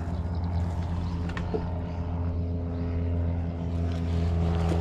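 A boat engine running with a steady, even hum that grows a little louder near the end, with a few faint ticks on top.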